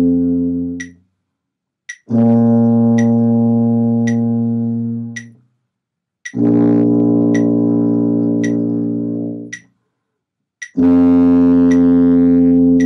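Tuba playing long held notes, about three seconds each with a short breath between, on the beginner exercise notes low B flat, F and high B flat. A metronome ticks steadily about once a second underneath.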